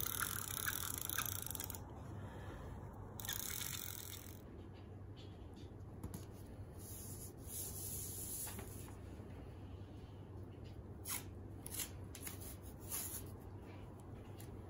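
Handmade Awagami washi paper rustling and scraping as hands smooth it flat on a mat, in several stretches of paper noise. A few sharp clicks come near the end, over a low steady hum.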